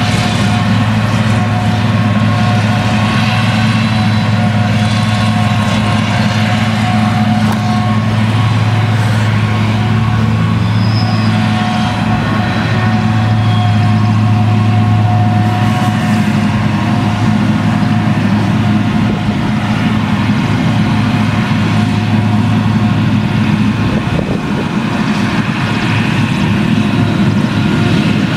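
Claas Jaguar 970 forage harvester working under load, chopping triticale through its Direct Disc header and blowing it into a trailer, together with the engine of the tractor running alongside. A steady deep engine drone carries a steady higher whine over it, and the deepest part of the drone falls away late on.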